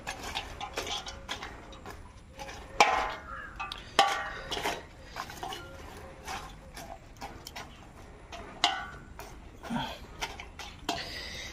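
Wire grill rack clinking and rattling against the rim of a metal pan of charcoal: scattered light clicks, with louder clanks about three and four seconds in.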